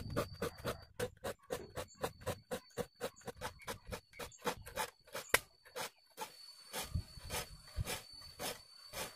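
A hand file rasping across the teeth of a wood hand saw, sharpening it in quick, even strokes about four a second; the strokes slow to about two a second and grow longer near the end.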